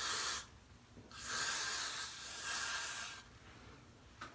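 Aerosol hair freeze spray hissing from the can in two bursts: one cutting off about half a second in, then a second burst of about two seconds.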